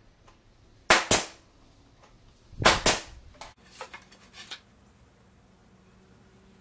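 Pneumatic brad nailer firing brads into furring-strip joints: four sharp shots in two close pairs about two seconds apart, followed by a few lighter clicks and knocks.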